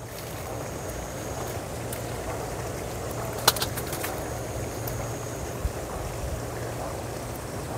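Steady outdoor background rumble with a low hum, broken by one sharp snap about three and a half seconds in and a softer click near six seconds.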